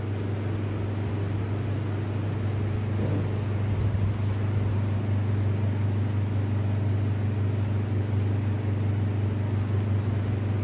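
Steady low electrical hum of laboratory equipment, even and unbroken.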